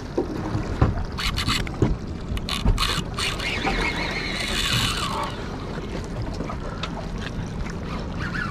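Baitcasting reel being cranked against a hooked fish, over steady wind noise on the microphone, with scattered clicks and knocks in the first few seconds.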